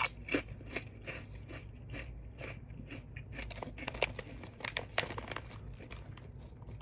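Chewing thin, puffed lentil chips: an airy crunch made of many small crisp cracks. Toward the end a hand rustles in the foil-lined chip bag.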